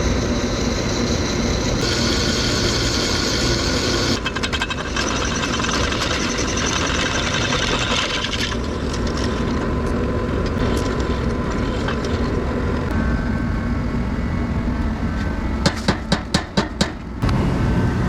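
Power drill boring holes through flat steel bar, a steady motor-and-cutting noise with a bright high edge for the first half, then a run of about six sharp clacks near the end.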